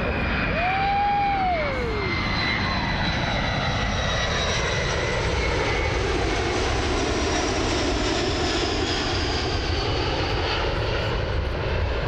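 A McDonnell Douglas DC-10 air tanker's three jet engines run through a low pass: a steady jet roar with a high whine that slowly falls in pitch as the aircraft goes by.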